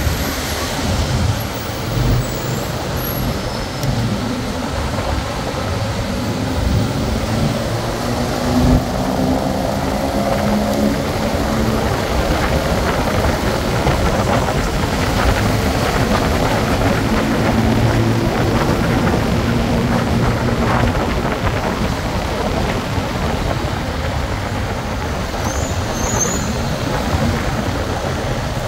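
Motorbike taxi riding through city traffic: its engine running and rising in pitch a few times as it speeds up, over a steady rush of road and traffic noise.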